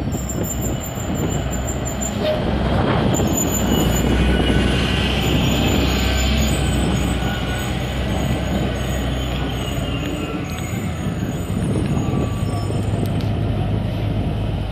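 2007 Orion VII hybrid-electric transit bus running as it moves off and pulls away, a steady low hum that peaks a few seconds in with a faint whine shifting in pitch above it.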